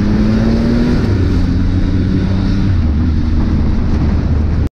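Motorcycle engine running while riding, with wind rushing over the camera's microphone; the engine note rises for about the first second, then holds steady. The sound cuts off abruptly near the end.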